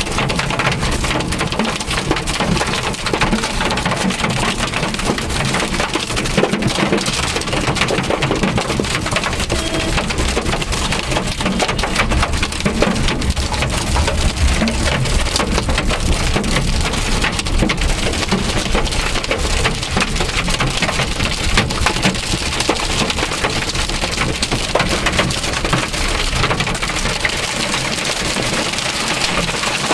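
Hailstones pelting a car's roof and windscreen, a dense, unbroken clatter of small hard hits heard from inside the car, with a low rumble underneath.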